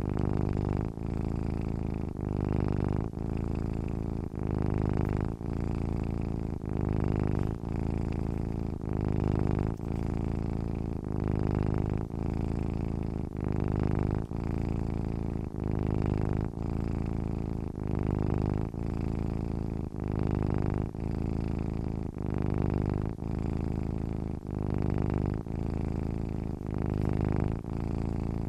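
A sleeping domestic cat purring steadily: a low buzzing purr that swells and dips with each breath, about every second and a half.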